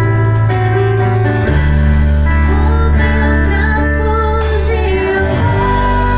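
A band playing live music: held low bass notes that change twice, with guitar and a singing melody over them.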